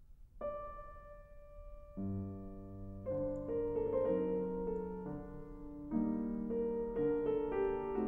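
Solo piano music: a single held note about half a second in, then chords and a melody joining from about two seconds on.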